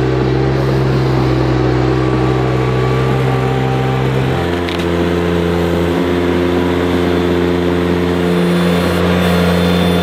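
Ventrac 4500Z compact tractor's engine running steadily under load while its grapple bucket works. The engine note steps up in pitch about four seconds in.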